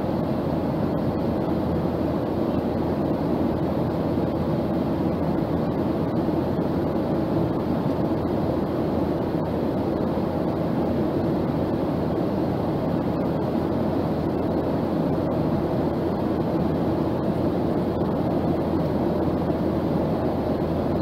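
Steady cabin noise of a Boeing 737 airliner in cruise, heard inside the cabin: an even rush of airflow and engine noise with a low hum underneath.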